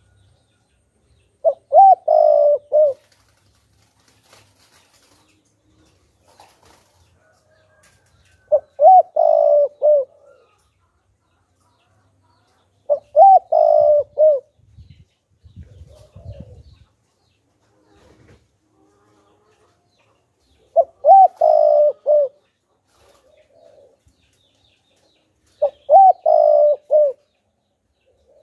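Spotted dove cooing: five phrases spaced several seconds apart, each a short opening note followed by two longer coos, about a second and a half in all.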